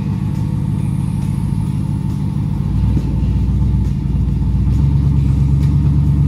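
Rock crawler's engine running at low speed on the trail, its pitch shifting as the throttle is worked; it grows a little louder and steadier near the end.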